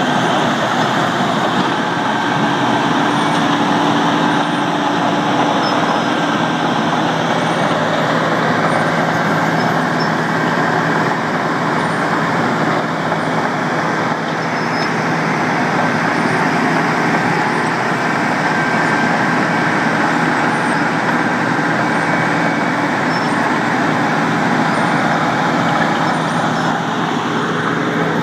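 Machinery running steadily with a constant hum and a continuous noisy rush, unchanging throughout.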